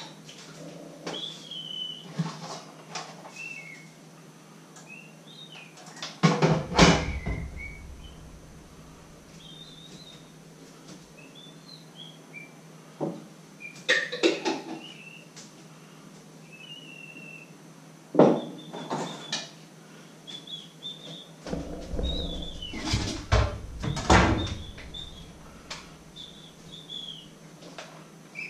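Kitchen clatter: knocks and rattles of utensils and appliances being handled and cupboards or drawers opened and shut, coming in four bouts. Short, high bird chirps are heard throughout.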